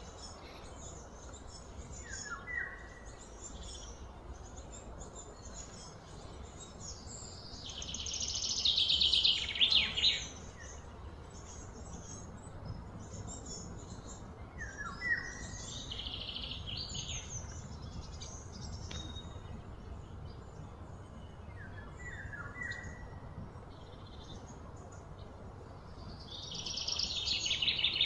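Outdoor wildlife ambience: birds chirping briefly a few times, and a loud pulsing buzzy call that swells for about two seconds three times, over a steady low background noise.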